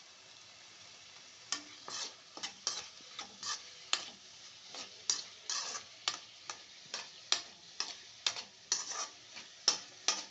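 A utensil stirring and scraping an onion, tomato and green-chilli mixture, with ginger paste just added, around a pan, in irregular strokes about two a second from about a second and a half in, over a faint sizzle.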